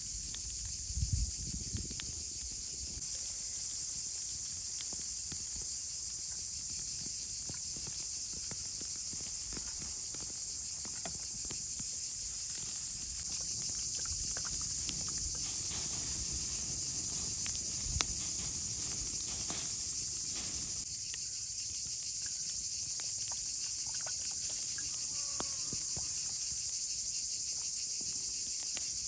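Steady high-pitched chorus of insects, with a few sharp single pops from the burning wood fire.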